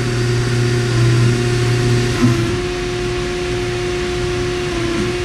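Index GB65 CNC lathe running through its cycle, with a steady machine hum and coolant spraying. About two seconds in there is a brief knock and the hum shifts to a different steady level.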